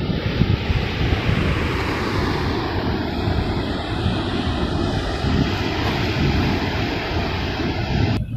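Wind buffeting the microphone over the steady rush of heavy surf still running high after a big-wave event. The hiss drops away abruptly just before the end.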